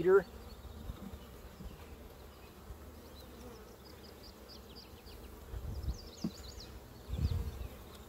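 Honey bees buzzing around an opened hive, a faint steady hum, with a few low rumbles in the second half.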